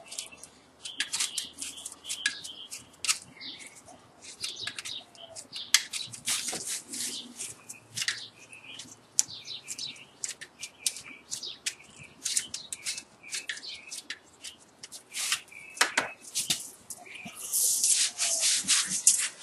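A bundle of copper magnet wire rubbing and clicking against the slots and insulation paper as it is hand-fed into an electric motor stator: rapid irregular scratches and ticks, with a longer rasping pull near the end.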